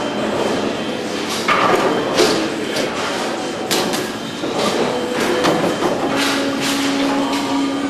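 Bowling alley machinery and lanes clattering: repeated knocks and rattles over a constant rumble. A steady low hum joins about six seconds in.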